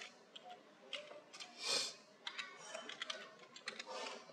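Keys of a computer keyboard being typed, a few light irregular clicks. About halfway through comes a short, louder rush of breath-like noise.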